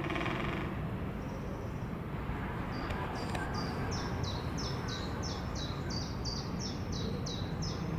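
A bird repeating a high, clear note about twice a second, each note dropping in pitch at its end, starting a few seconds in. A steady low background rumble runs underneath.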